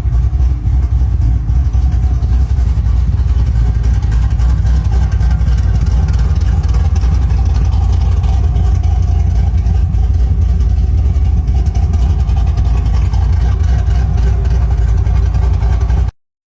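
Stroked LS7 V8 in a custom Jeep idling with a choppy, loping beat, running steadily on a fresh tune.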